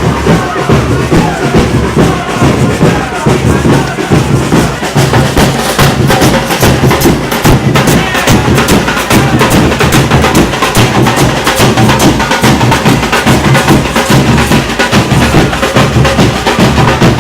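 Samba percussion band playing a fast, dense drum rhythm, with steady low drum beats and sharp clicking strikes over it.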